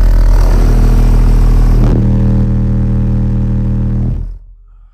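Aura Monstro 15D1 15-inch subwoofer, driven by a Phoenix Sport 1.4500 amplifier at 0.5 ohm, playing a steady 40 Hz test tone at full power inside a Toyota Corolla Fielder's cabin, measured at about 147 dB. A buzzing rattle rides on the tone, strongest for the first two seconds, and the tone cuts off suddenly about four seconds in.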